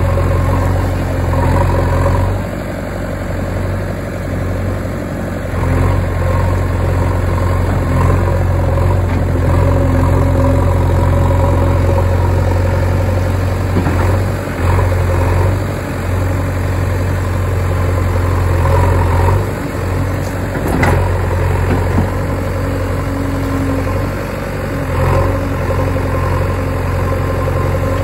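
JCB backhoe loader's diesel engine running, its loudness rising and falling as the machine works. A single sharp knock comes about three quarters of the way through.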